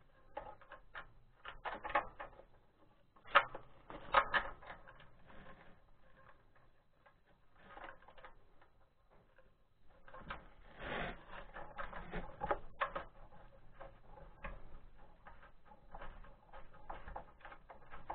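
Irregular small clicks, taps and knocks of hands handling the mounting hardware while fitting a Lifan 168F engine onto its mounting plate, with two sharper knocks a few seconds in and a quieter stretch midway.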